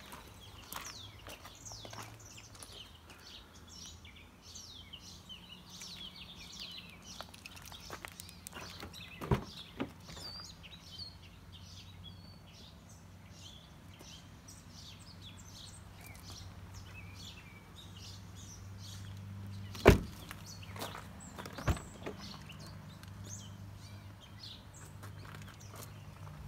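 Small birds chirping, with a low steady hum underneath. A few sharp knocks from the car's doors being handled, the loudest about two-thirds of the way through.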